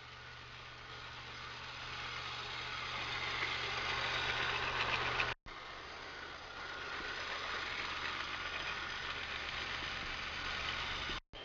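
Lima 1:45 toy train approaching on sectional track: its electric motor whirring and wheels rattling on the rails, growing steadily louder. It breaks off abruptly about halfway, then starts again quieter and builds up once more.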